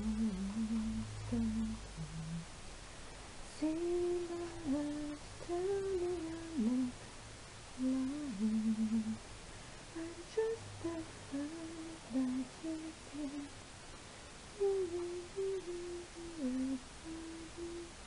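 A woman humming a slow tune, note by note, with held notes, small slides in pitch and a couple of short breaks.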